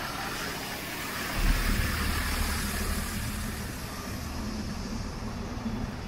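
Street traffic: a nearby motor vehicle's low engine rumble sets in about a second and a half in, over steady city noise.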